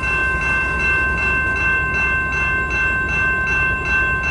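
Grade-crossing warning bell ringing in fast, even strokes over the low rumble of freight cars rolling slowly through the crossing as the train slows to a stop.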